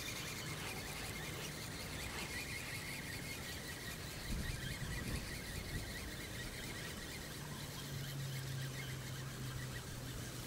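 Steady outdoor background noise at a lakeside, with a faint low hum that comes in about seven seconds in.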